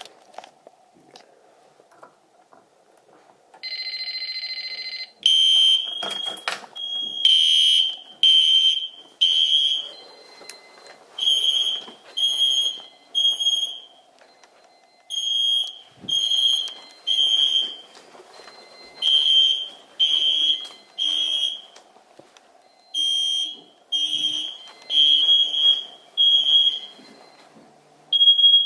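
Fire alarm horn sounding the three-pulse evacuation pattern: loud blasts about a second apart in groups of three, with a pause between groups. It starts several seconds in, after a short steady buzz of about a second and a half.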